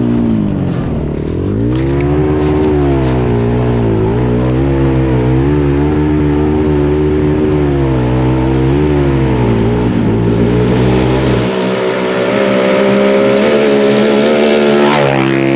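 Single-cylinder ATV engine revving hard as the quad is raced around a dirt track, its pitch dipping and climbing again and again with throttle and gear changes. About ten seconds in, a steady hiss comes up over the engine.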